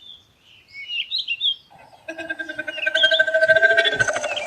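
Birds chirping and tweeting throughout. About two seconds in, a loud, steady, buzzing pitched call starts and holds for about three seconds, played as the gorilla's sound.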